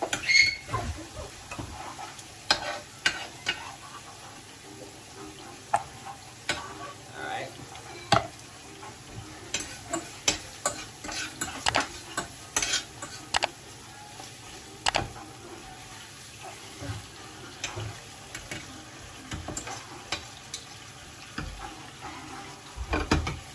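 Steak sizzling in a non-stick frying pan on a gas hob, with many sharp, irregular clicks and scrapes of a metal utensil against the pan as the fat is trimmed off. A low bump near the end as the pan is lifted on the hob.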